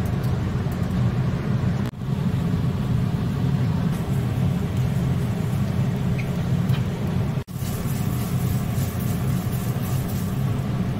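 A steady low rumble, cut off briefly twice, about two seconds and seven and a half seconds in.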